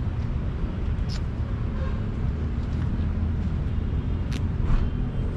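A steady low engine rumble, with a few faint clicks.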